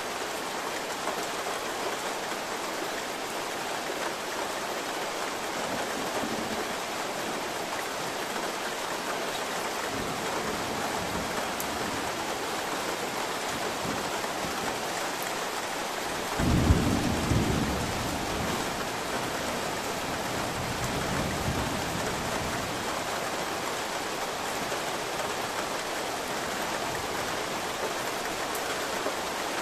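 Steady rain throughout, with a sudden loud thunderclap a little past halfway whose rumble trails off over a few seconds.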